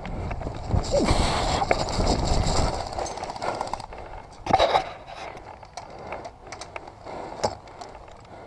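Scraping and rustling handling noise as the player pushes up against a wooden pallet wall, with one heavy thump about four and a half seconds in, then scattered faint clicks.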